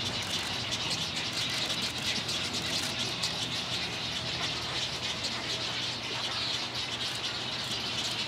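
Many nesting birds in a rookery calling at once: a steady, dense chorus of short chirps and chattering calls.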